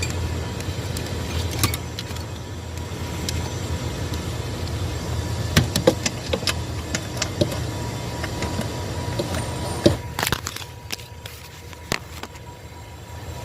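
Scattered sharp clicks, taps and light metal clatter of hand tools and parts being handled while dismantling a car's steering column housing, over a steady low rumble that drops off about ten seconds in.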